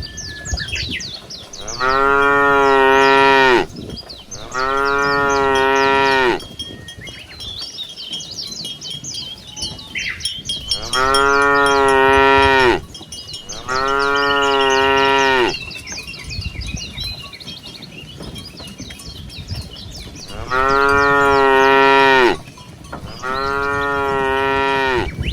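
Cow mooing: six long, loud moos in three pairs, each pair a few seconds apart. Faint high clinking and chirping fills the gaps between the pairs.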